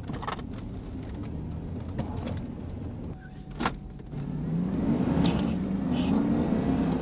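Engine and road noise inside a moving pickup truck's cabin, with a few sharp knocks about two and three and a half seconds in. In the second half the engine hum gets louder and rises in pitch, as when accelerating.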